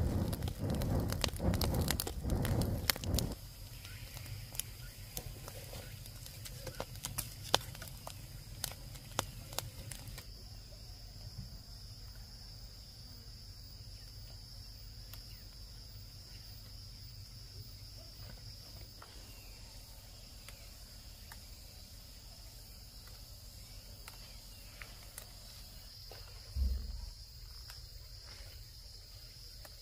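Forest ambience: dense crackling and rustling for the first few seconds, then scattered crackles. About a third of the way in, a steady high insect drone sets in and holds. A single dull thump comes near the end.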